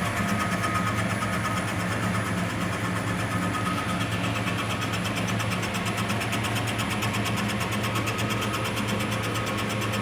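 Metal lathe running with a steady motor hum while boring out a tailstock. A fine, fast, even rattle of the cut joins in about four seconds in.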